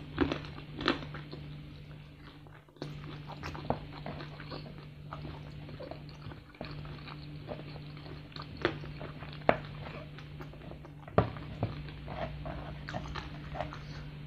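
Close-up eating sounds: biting into and chewing crispy fried chicken in spicy Samyang sauce, with several sharp crunches scattered through the chewing.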